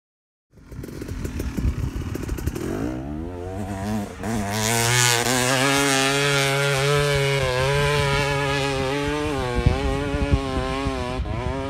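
KTM 300 XC two-stroke dirt bike engine, fitted with new reed valves, starting about half a second in, then revving up and rising in pitch over the next few seconds. It then holds at high revs with the pitch wavering, under load climbing a hill.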